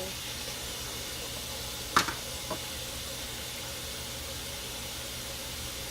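Steady hissing noise with a low hum underneath, broken by a sharp click about two seconds in and a smaller click half a second later.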